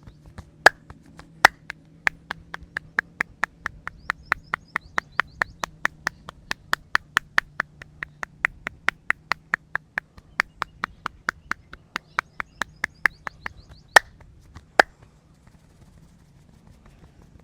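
Rapid rhythmic hand claps and slaps of a head massage, about three to four a second, opening and closing with two louder single claps.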